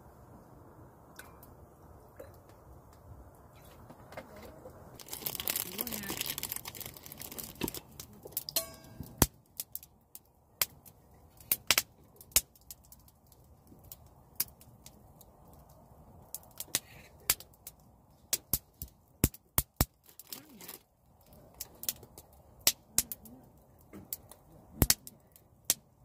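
Wood fire crackling in a fire stand: sharp irregular pops and snaps over a low steady rush. A louder hissing rush about five to eight seconds in.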